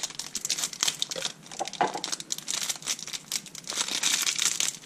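Plastic wrapper of a squishy-toy blind bag crinkling and tearing as it is opened, a dense run of crackles.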